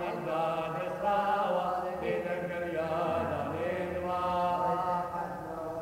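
Syriac Orthodox liturgical chant from the Epiphany service: voices singing continuously, with held notes that bend in pitch over a steady lower tone.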